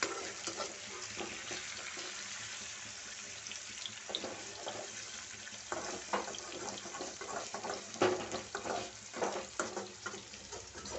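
Chicken pieces sizzling in hot oil in a metal pan, with a steady hiss. From about four seconds in, a slotted metal spatula scrapes and knocks against the pan in a run of stirring strokes.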